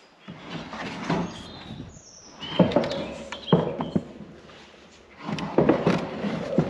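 A large plastic feed bin being dragged and slid off a wooden pallet across a trailer bed: scraping, with several sharp knocks where it bumps and drops.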